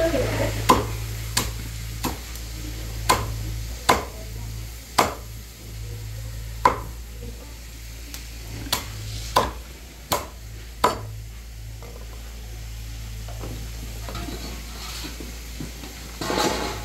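Cleaver chopping boiled chicken on a thick wooden chopping block: a dozen or so sharp chops at uneven intervals, thinning out about eleven seconds in.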